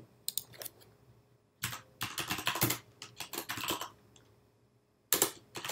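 Computer keyboard typing in quick bursts of key clicks, with a pause of about a second near the end.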